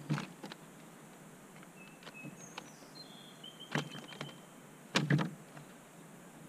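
Scattered knocks and clicks from a small bass and fishing tackle being handled in a kayak, the loudest about four and five seconds in, over a faint steady hiss. A few short high chirps fall between them.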